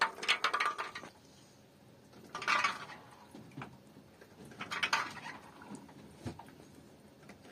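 Handfuls of soaked chickpeas dropped into a large metal cooking pot, pattering and clicking as they land on the meat and beans, three times about two seconds apart.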